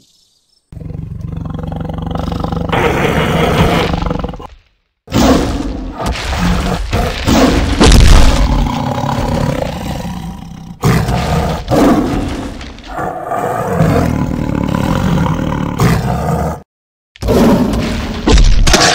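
Sound-effect recordings of a big cat growling and roaring, spliced together with abrupt cuts and two short silent gaps, one about five seconds in and one near the end.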